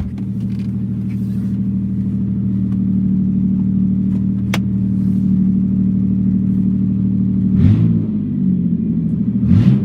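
1997 Toyota Avalon's 3.0-litre V6 running with open exhaust manifolds (no exhaust system after the manifolds), idling steadily. Near the end its speed rises and falls briefly twice.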